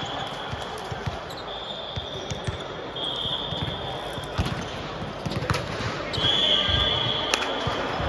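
Indoor volleyball play: several high squeals, each about a second long, a number of sharp smacks of a ball, and voices around the hall.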